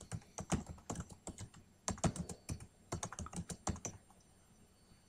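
Typing on a computer keyboard: an uneven run of key clicks that stops about four seconds in.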